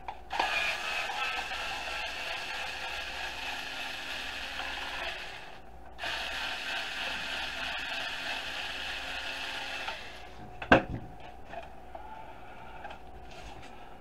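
Small cordless screwdriver running in two spells of about five and four seconds with a short pause between, backing out a screw from a plastic housing. A sharp knock comes a few seconds before the end.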